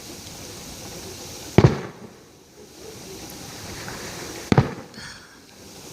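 Aerial fireworks shells bursting: two loud booms about three seconds apart, each with a short rolling echo.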